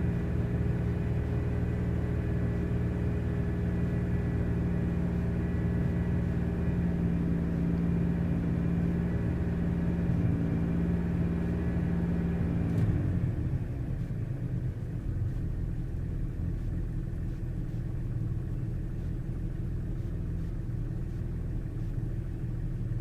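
Car engine with a misfire running steadily, then about halfway through its speed drops and it settles to a lower idle.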